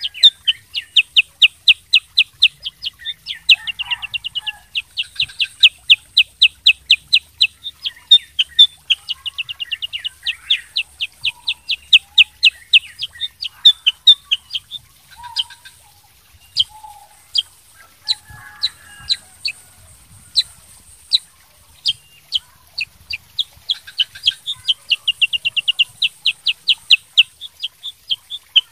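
Black-headed bulbul (kutilang sutra) singing: long fast runs of sharp, high chirping notes, several to the second, with a slower middle stretch of single notes spaced about a second apart before the fast runs resume near the end. A faint steady high hiss runs underneath.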